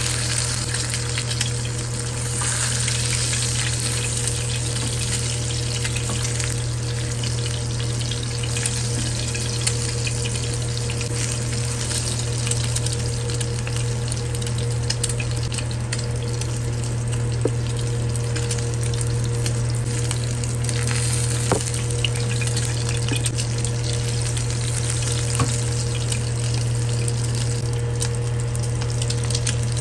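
Egg frying in hot oil in a nonstick frying pan: a steady sizzle with a few sharp pops scattered through it, over a steady low hum.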